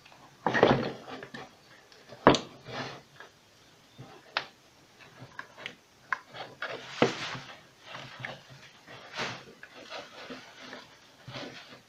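Irregular knocks, clicks and short scrapes of metal and plastic parts being handled as a submersible water pump is pried apart to reach its capacitor. There is a loud clatter about half a second in and a sharp knock about two seconds in, then scattered smaller clicks and scrapes.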